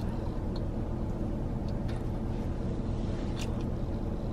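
Steady low mechanical hum with a few faint light clicks scattered through it.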